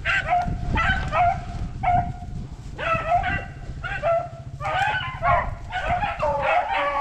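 A pack of rabbit hounds baying on a rabbit's trail, several dogs calling at once in repeated, overlapping bays.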